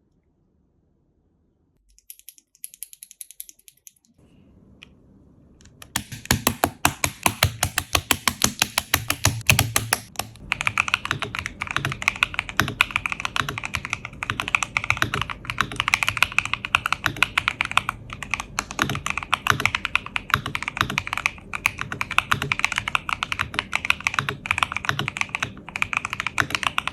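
Typing on an ROG Azoth mechanical keyboard fitted with Akko CS Crystal Blue switches and a tape mod. A few light key clicks come about two seconds in, then from about six seconds in there is fast, continuous typing, many keystrokes a second.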